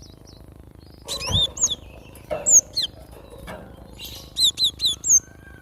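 Cinereous tit (glatik batu) calling in short groups of sharp, high chirping notes, ending with a quick run of four repeated chirps. There is a dull knock about a second in.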